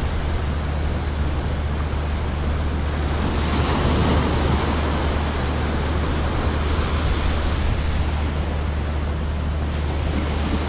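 Ocean surf washing on the beach: a steady rush of breaking waves over a low rumble, swelling slightly about four seconds in.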